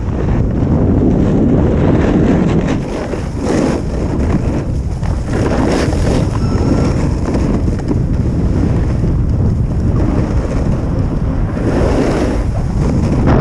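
Wind buffeting a GoPro action camera's microphone on a fast descent of a groomed ski slope, with the hiss and scrape of edges on packed snow swelling every second or two.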